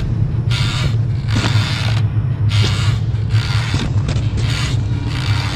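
A pushed trolley rolling, its wheels creaking and rattling in an even rhythm of about two strokes a second over a steady low rumble.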